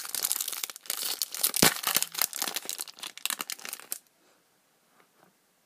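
Foil Pokémon booster pack wrapper being torn open and crinkled in the hands, with one sharp loud crackle about one and a half seconds in. The crinkling stops abruptly about four seconds in.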